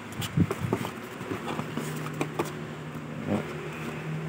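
Scattered clicks and knocks of handling a fishing reel's packaging: its box, bag and papers. A steady low hum sets in about a second and a half in.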